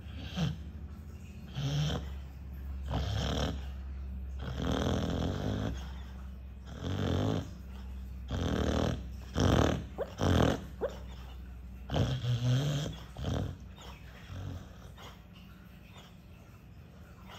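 Sleeping dog snoring, super loud and rasping like an electric drill, in rough irregular bursts about every second or so that die away near the end.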